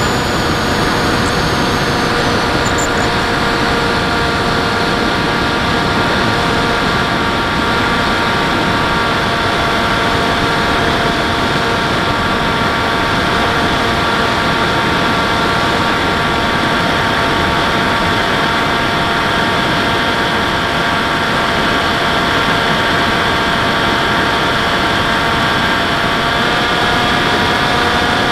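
Model airplane's motor and propeller heard from the onboard camera: a steady whine over rushing airflow noise. The pitch dips slightly at the start and rises a little near the end as the throttle changes.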